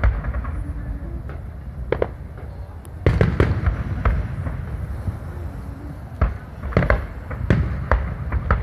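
Aerial firework shells bursting: sharp bangs, one at the start, one about two seconds in, a cluster about three seconds in and several in quick succession near the end, over a steady low rumble.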